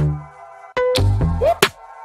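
Electronic background music with sharp drum hits over deep bass notes and a sustained synth pad.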